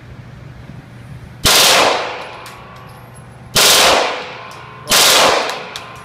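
Glock 18 machine pistol in a carbine kit firing three short full-auto bursts of 9mm, each about half a second long: about a second and a half in, about three and a half seconds in, and about five seconds in. Each burst rings on briefly off the walls of the indoor range.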